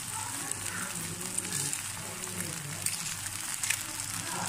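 Beaten eggs sizzling in hot ghee in a frying pan, a steady hiss with light crackling.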